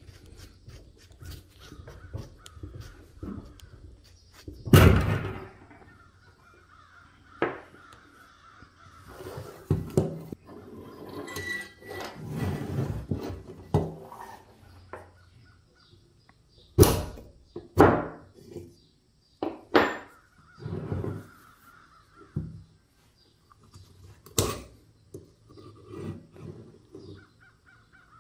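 Rusty steel airgun parts handled during disassembly on a wooden workbench: a series of sharp knocks and clunks as the parts are pushed, dropped and set down, with rough scraping between them.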